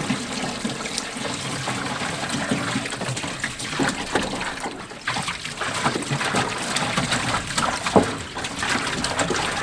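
Water running and trickling from a garden hose, with scattered small clicks and one sharp knock about eight seconds in.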